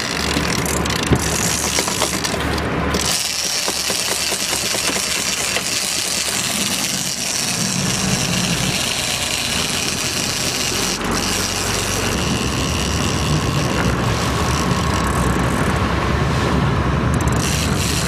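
Boat engine running steadily under a dense hiss of wind and water, with one sharp knock about a second in.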